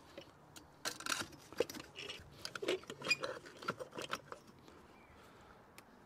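Light, irregular clicks and knocks from hands working the oil line fittings and valve at the furnace burner, bunched over about three and a half seconds and then stopping.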